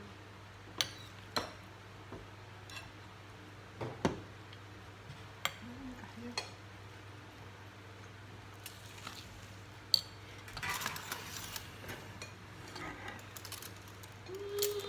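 Metal spoons and ceramic bowls and plates knocking together as food is served at the table: several sharp, separate clinks among quieter scraping and shuffling, over a steady low hum.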